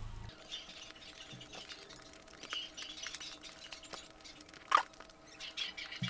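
Close-miked eating sounds: faint wet clicks and smacks of chewing biryani, with fingers picking at rice and tearing chicken, and one sharper click just before five seconds in.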